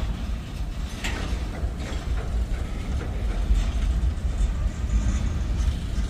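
Boxcars of a freight train rolling slowly past: a steady low rumble of steel wheels on rail, with scattered clicks and clanks.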